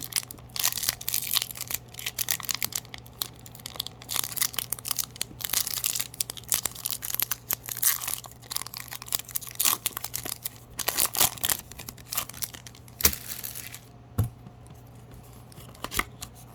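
Foil wrapper of a Pokémon trading card booster pack being torn open and crinkled, a dense run of crackling for about thirteen seconds. It then goes quieter, with a few sharp clicks near the end.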